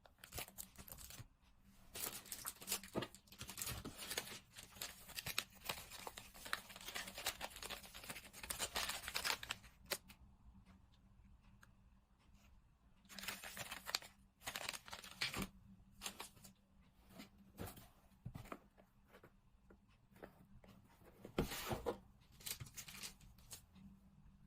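Merchandise packaging being torn open and crinkled by hand: a long stretch of tearing and rustling, then shorter bursts of handling later on.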